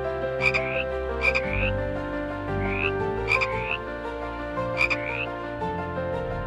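A frog calling: short croaks, each a sharp click followed by a quick upward sweep in pitch, repeated about once a second and stopping a little before the end.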